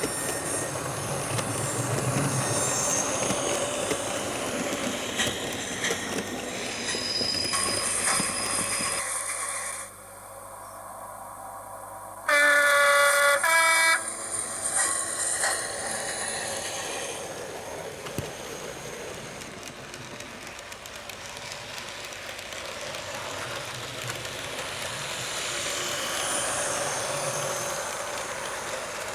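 Hornby HM7000 Bluetooth sound decoder in a model locomotive playing recorded locomotive running sounds through its small onboard speaker, with a loud horn blast of about a second and a half near the middle.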